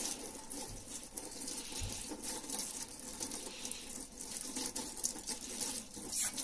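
Water from a kitchen tap splashing over a plastic range-hood blower wheel and into a stainless-steel sink as the degreaser and loosened grease are rinsed off, with a sharp knock near the end.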